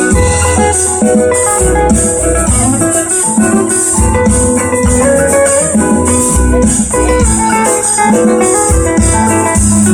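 Live band playing an instrumental passage of a slow acoustic song: plucked guitars over low bass notes, with a steady high rattling hiss on top, and no singing.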